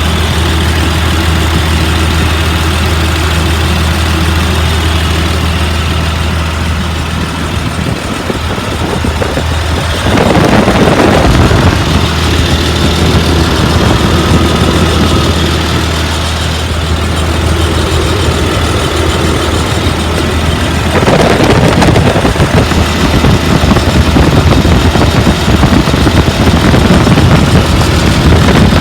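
A Caterpillar school-bus diesel engine, which the seller takes for a 3126, idling steadily with a low hum after running for over an hour. About ten seconds in, and again about twenty-one seconds in, a louder rushing noise comes in over the idle.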